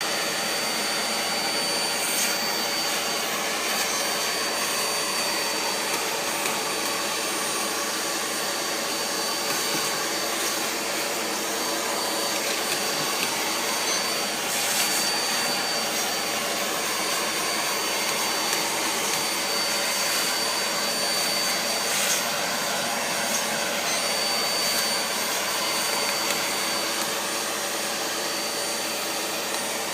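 Vacuum cleaner running steadily with an even rushing noise and a thin high whine, with a few faint knocks now and then.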